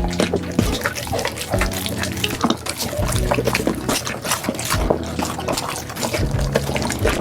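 Dogs chewing and eating fish close to the microphone: wet smacking and lip sounds with many quick crunching clicks.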